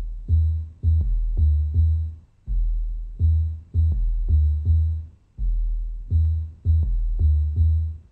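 Background electronic music with no vocals: a deep bass line hitting in a repeating pattern, with faint high ticks on top.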